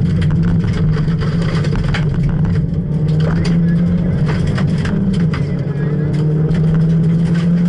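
Ford Fiesta R1 rally car's engine running hard under load, heard inside the cabin, with gravel clattering against the car in many short sharp clicks. The engine note holds fairly steady, shifting a little about five seconds in.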